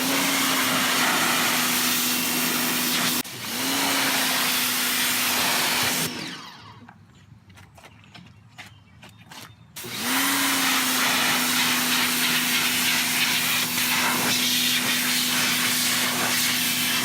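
A handheld electric power tool running in three bursts, the motor spinning up to a steady whine at the start of each; the first two run about three seconds each, and after a quiet gap with a few small clicks the last runs about seven seconds.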